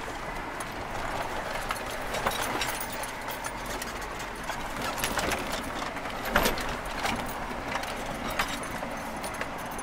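Jeep cabin noise while driving slowly on a rough gravel road: a steady rumble of tyres and vehicle with irregular knocks and rattles as it goes over bumps, the loudest jolt about six seconds in.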